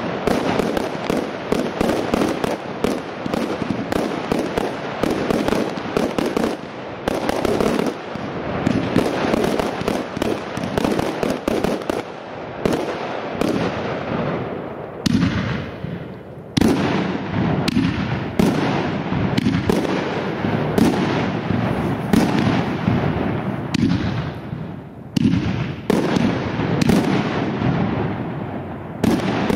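Aerial fireworks bursting overhead in a professional display. For the first dozen seconds the bangs and crackles come thick and fast, several a second; after that they come as separate bursts about once a second, each trailing off.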